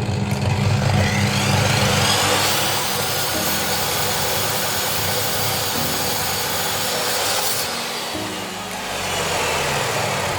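Woodworking power saw cutting pallet boards, its motor whine rising in pitch about a second in and dropping away near the end, over background music.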